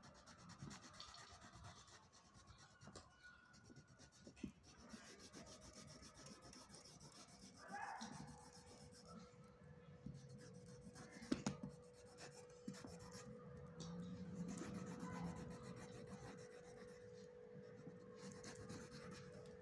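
Faint scratching of a crayon rubbed over paper in short strokes, colouring in an area of a drawing.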